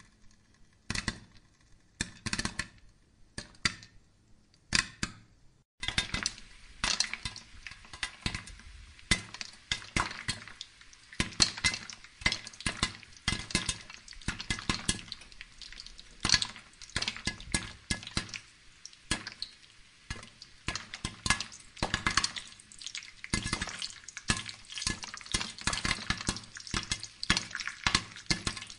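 Corn cobs roasting on a charcoal brazier: the hot coals and kernels crackle and click. The clicks are scattered at first and become a dense, continuous crackle from about six seconds in.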